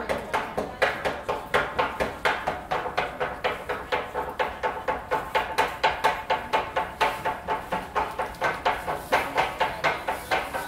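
Tontoko-ame candy cutting: knives chopping sticks of hard candy on a wooden cutting board, a brisk, even rhythm of about four sharp strikes a second.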